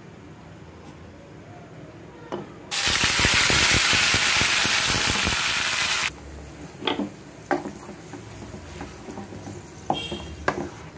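Ground onion and spice paste dropped into hot oil in a kadhai: a loud hissing sizzle that starts suddenly about three seconds in and cuts off abruptly about three seconds later. It is followed by a spoon clinking and scraping against the pan as the paste is stirred.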